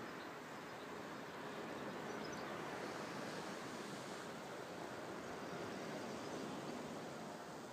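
Steady outdoor ambient noise, an even soft hiss with no distinct events.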